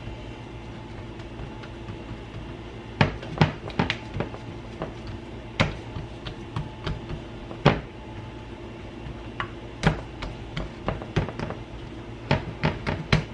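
Hands pressing cookie-bar dough into a ceramic baking dish on a glass cooktop: scattered sharp knocks and clicks as the dish shifts and taps against the glass, in irregular clusters, over a steady low hum.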